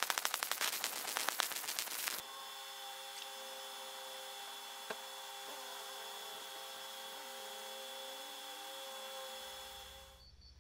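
Fiber laser marking the steel axe head: a rapid, dense crackling buzz for about the first two seconds, then a steady hiss with a faint hum during a laser cleaning pass over the engraved logo. The hiss stops near the end.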